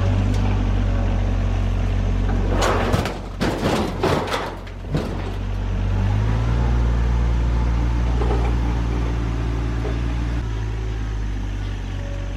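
RK 25 subcompact tractor's diesel engine running steadily, with a cluster of sharp clanks and crunches about three to five seconds in. The engine gets a little louder around six seconds in.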